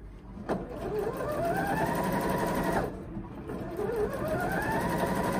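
Janome 1050DC computerized sewing machine stitching a straight seam in two runs. Each time the motor whine rises in pitch as it speeds up, then holds steady. The first run stops about three seconds in, and the machine starts again half a second later.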